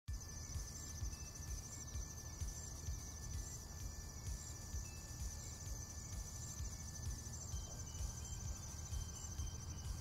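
Nature ambience: a steady high insect trill and short, repeated bird notes over a low, uneven rumble.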